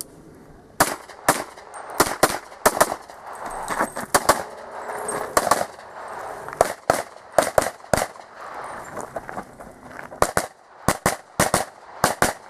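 Pistol shots fired in quick pairs and short strings, with brief pauses between groups, as in a practical-shooting stage run.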